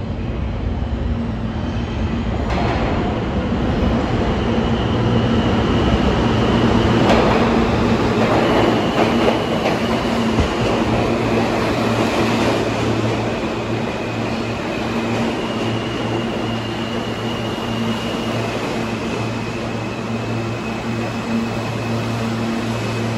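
New York City subway train moving along the station track: a loud, steady rumble and hum that swells in the middle, with a thin high whine that shifts up and down in pitch.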